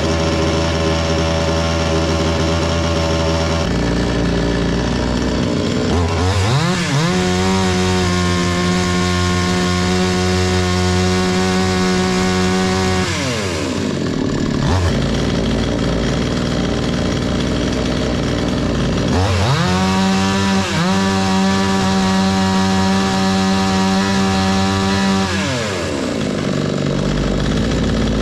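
Two-stroke chainsaw engine test-run after repair: it idles, then is revved up and held at high speed for about six seconds, drops back to idle, and is revved and held again before falling back to idle near the end.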